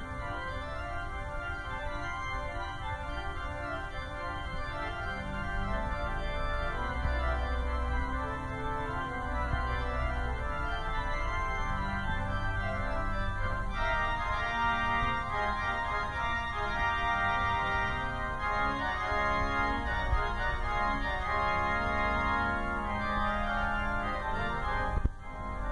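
Organ playing sustained chords over a deep pedal bass line, growing fuller about halfway through, with a brief break near the end before the playing resumes.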